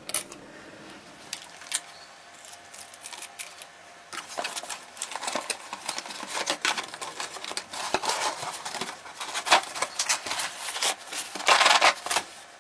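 A cardboard box being handled and things moved about inside it: rustling and scraping with many small clicks and knocks. It is sparse at first, gets busy about four seconds in, and has a louder burst of rustling just before the end.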